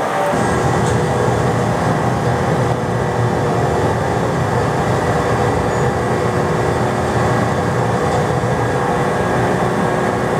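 Three-engined McDonnell Douglas DC-10 jet airliner's engines running, a steady loud rush of noise with a few faint steady hums in it.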